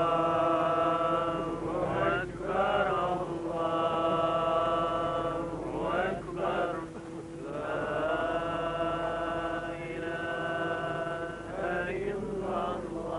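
Islamic religious chanting: a voice holding long, drawn-out notes with melodic turns, in phrases of a few seconds separated by short breaths.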